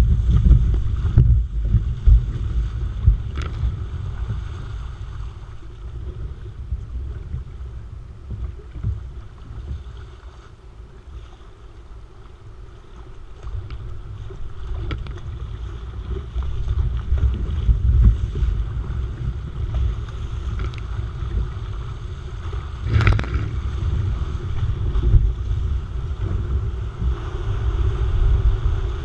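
Sea kayak being paddled through breaking surf: water rushing and splashing against the hull and paddle blades, with heavy wind buffeting on the deck-mounted microphone. Loud at first, it eases off in the middle and builds again as the kayak runs into the white water, with one sharp knock late on.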